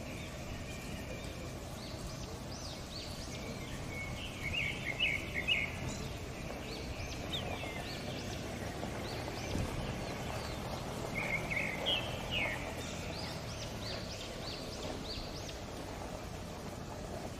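Wetland ambience with wild birds calling: two bouts of rapid chattering calls, one about four seconds in and another about eleven seconds in, with scattered higher chirps, over a steady low background hum.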